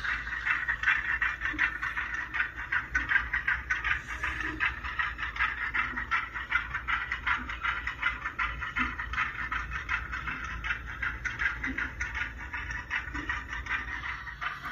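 Model railroad steam locomotive running along the layout track, a steady, fast rhythmic chatter.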